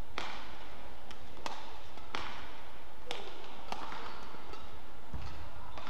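Badminton rally: racket strings strike the shuttlecock in quick exchange, about seven sharp cracks roughly one each second, each ringing briefly in the hall.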